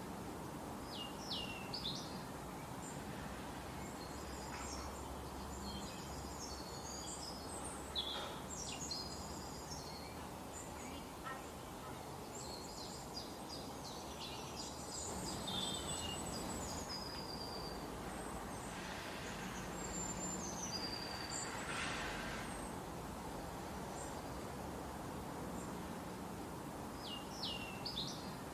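Forest ambience: small birds chirping and whistling at intervals, including a repeated pair of quick falling calls, over a steady background hiss.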